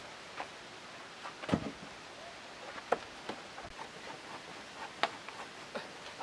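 Scattered knocks and taps of wooden timbers being handled as a squared post's tenon is lined up over a beam's mortise; about half a dozen irregular knocks, the loudest about one and a half seconds in and another at the very end.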